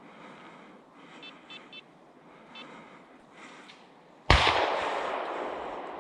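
A single close gunshot from a hunting gun about four seconds in, its report echoing through the forest and dying away slowly over the following seconds.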